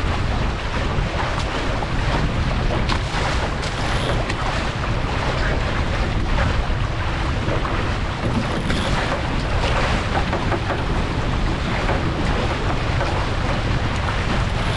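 Wind buffeting the microphone over the steady rush and splash of water along the hulls of a Paper Tiger catamaran under sail.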